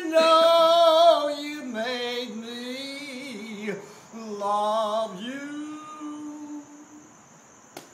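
A man singing unaccompanied: long held notes with vibrato, sliding between pitches in a few phrases, the last note fading away near the end.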